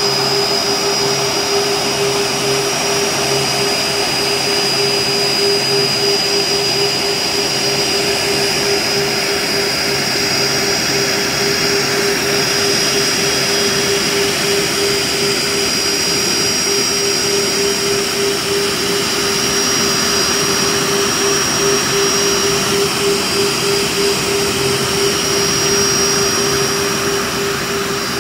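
Boeing 747 freighter's jet engines running at low taxi power close by as it rolls slowly past. A steady, loud rushing sound with a high whine and a lower hum held throughout.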